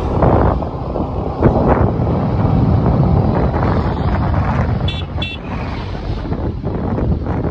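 Wind buffeting the microphone of a moving motorcycle, a steady rushing rumble. Two short horn beeps sound about five seconds in.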